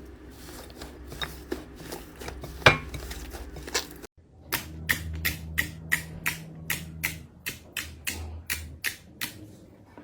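Slime being worked by hand: faint crackling with one sharp click, then, after a cut about four seconds in, a steady run of crisp pops, about four a second.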